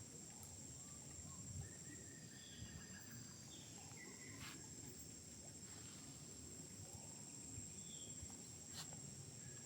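Faint forest ambience: insects keep up a steady high-pitched drone, with a few short bird chirps scattered through and soft low rustling underneath.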